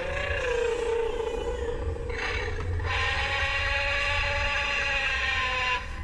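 Toy T. rex's electronic roar sound effect playing from its small built-in speaker: a long growling roar with a rougher break about two seconds in, over a low hum.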